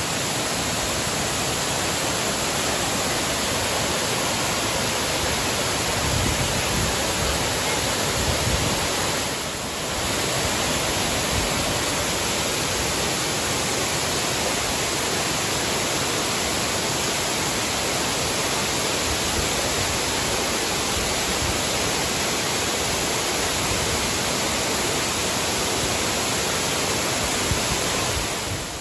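Sherman Falls in heavy flow, water pouring down stepped rock ledges and splashing onto the rocky streambed below: a steady, loud rush that dips briefly about nine seconds in.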